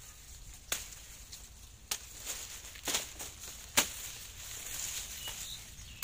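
Sharp chopping strikes, four of them about a second apart, as a blade hacks at a cut sugarcane stalk, with dry cane leaves rustling between the strikes.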